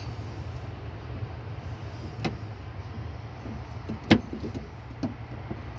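A few sharp clicks and taps of a screwdriver prying at the plastic locking clip of a fuel pump's wiring connector. The loudest click comes about four seconds in. A steady low rumble runs underneath.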